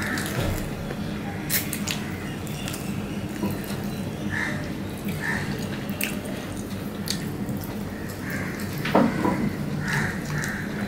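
Wet chewing, smacking and lip clicks of a person eating by hand, with a scatter of short sharp clicks over a steady low hum.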